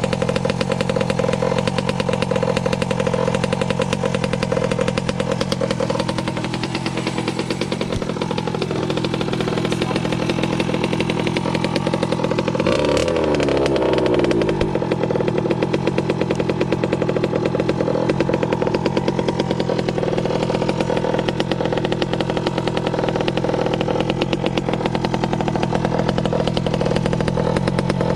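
Small-bore two-stroke petrol engine of a 1/5-scale RC rally car, a 46cc RCMAX, running steadily with a rapid, buzzy firing note. Its pitch swings up and back down once about halfway through as the throttle is blipped.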